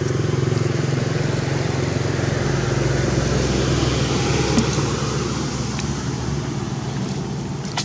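A motor running steadily, a low hum that shifts lower about two and a half seconds in, with a light click about four and a half seconds in and another near the end.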